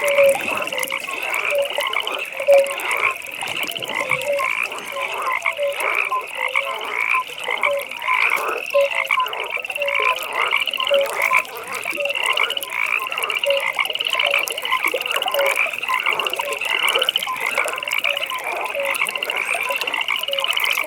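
A chorus of many frogs calling at once without a break: a high pulsing trill over lower, short repeated croaks, all overlapping.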